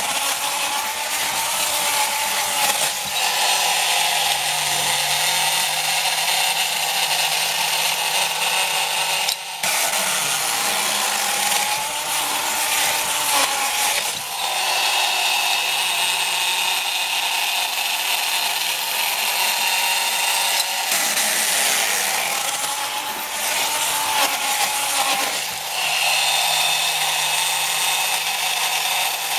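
Tin toy police motorcycle's drive mechanism running with a continuous mechanical whirr and rattle, a wavering tone riding on it, with short dips every few seconds.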